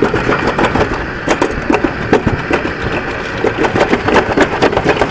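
Summer toboggan sled running fast down a stainless-steel trough track: a steady rumble from its wheels with rapid, irregular clattering.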